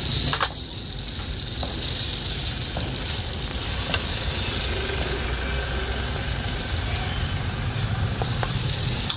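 Batter-coated banana fritters sizzling steadily in hot oil in a frying pan.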